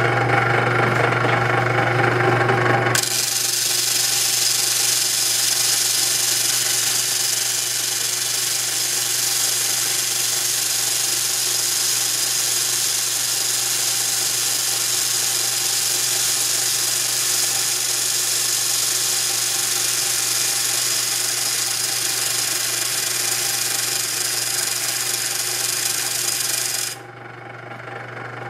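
Power grinder running with a steady hum; about three seconds in it bites into a Zippo lighter's flywheel and flint insert with a continuous high grinding rasp. Near the end the grinding stops abruptly and only the motor hum remains.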